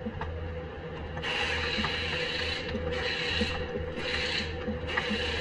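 Mechanical whirring and hissing in repeated bursts of about a second each with short gaps between, over a steady low hum: a tool at work on the suspension.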